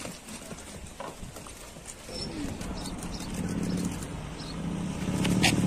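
Outdoor ambience with a vehicle engine humming steadily, growing louder from about halfway through as it draws near.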